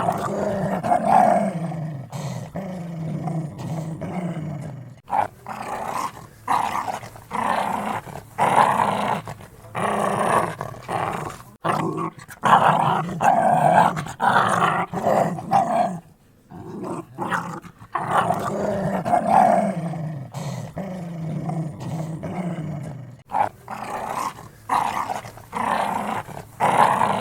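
Dogs growling in repeated rough bouts, each one to a few seconds long, with short breaks between them.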